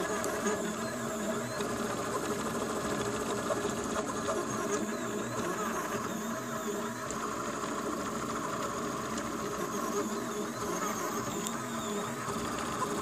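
Delta 3D printer's NEMA 17 stepper motors driving the print head at high speed, a busy whirring with tones that keep gliding down and back up as the head slows and speeds up through its moves.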